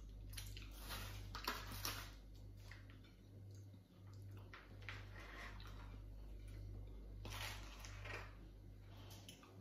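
A metal spoon scraping and scooping rice out of a foil takeaway tray, in two short spells of scrapes and clicks, near the start and again about three-quarters through, over a faint steady low hum.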